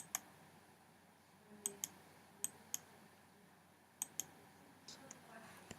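Faint, sharp clicks of a computer pointing device, mostly in quick pairs: four pairs spread over the stretch, then a couple of softer single clicks near the end.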